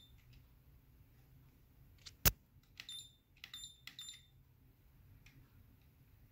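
Eclipse CD3100 car stereo head unit giving three short high beeps about three to four seconds in as buttons on its faceplate are pressed, with a single sharp click just before them. A faint low hum runs underneath.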